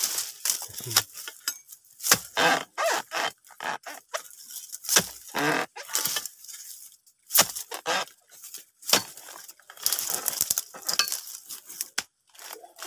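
A harvesting chisel (dodos) knocking and cutting at the fruit bunch of a young oil palm, with dry palm fronds and grass crunching and rustling around it: short crunches and sharp knocks at irregular intervals.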